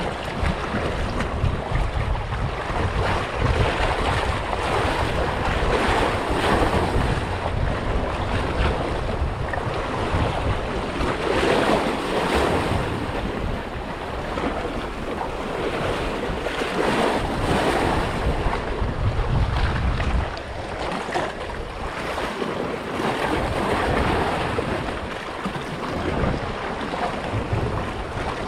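Wind buffeting the microphone over the sound of waves washing and splashing on open water, in uneven gusts and swells.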